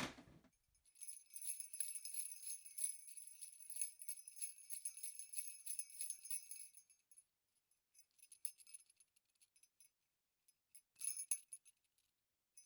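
Sleigh bells jingling in a rapid shimmering rattle for about six seconds, then a few faint shakes and a short burst of jingling near the end.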